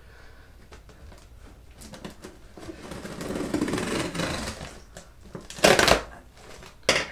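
A shipping package being opened by hand: cardboard and packing material scraping and rustling, with two short, loud bursts of noise near the end, the first the louder.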